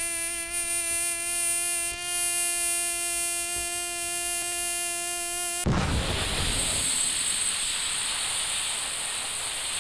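Mosquito buzzing: a steady, high, pitched whine that cuts off abruptly about five and a half seconds in. A brief low thump follows, then a steady hiss with a thin high whistle, a slow-motion bullet sound effect.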